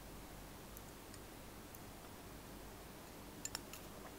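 Faint, scattered mouth and swallowing clicks from drinking through a straw, with two sharper clicks about three and a half seconds in.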